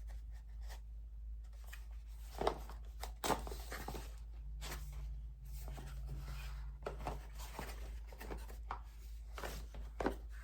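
Small drone accessory box being opened and its packaging handled: scattered clicks, light knocks and rustling.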